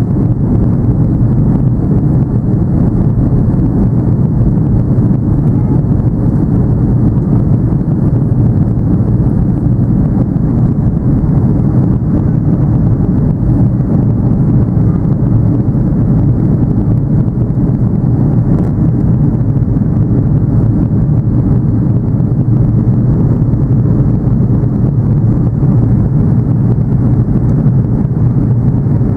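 Steady low rumble of engine and airflow noise inside the cabin of an Airbus A330-200 airliner in flight.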